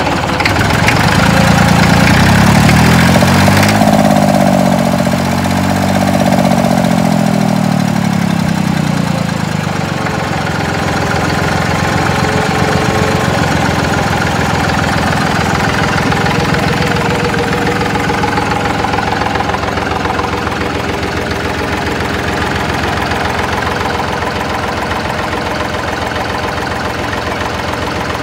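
Fordson Dexta tractor's three-cylinder diesel engine, just brought back to life after restoration. It revs up over the first few seconds and eases back down, then settles into a steady idle.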